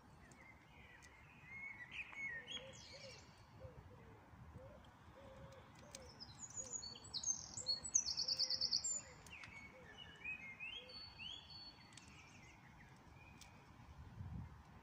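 Songbirds singing in the trees: a series of short chirping and warbling phrases, loudest in a fast trill of repeated high notes about seven to nine seconds in, over faint outdoor background noise.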